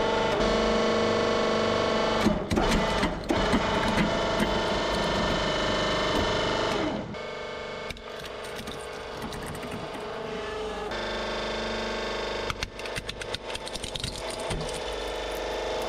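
Hydraulic press running with a steady mechanical hum while objects crack and snap under the ram, in quick bursts about two to three seconds in and again through the last few seconds.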